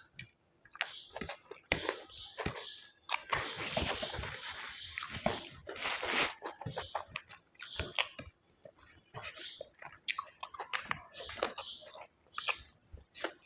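Close-miked chewing and wet mouth smacks while eating a rice-and-curry meal. A louder crunchy stretch runs from about three to six seconds in.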